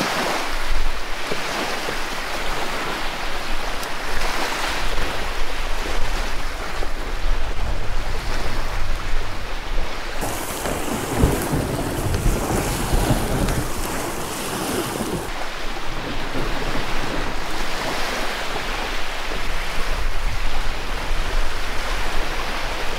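Choppy water with waves washing and splashing, and wind buffeting the microphone, heaviest about halfway through.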